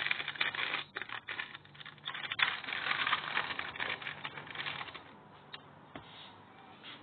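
Irregular scratchy crinkling as a knife cuts into a baked cake lined with parchment paper, dying down about five seconds in, followed by a couple of light clicks.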